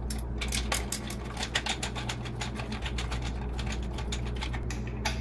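Screwdriver backing small screws out of a metal light-fixture mounting bracket: a quick, irregular run of light metallic clicks, several a second, over a low steady hum.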